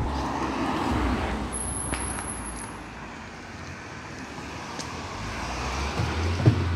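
A motor vehicle passing on the street, its noise swelling over the first second or two and fading, then rising again near the end as more traffic approaches.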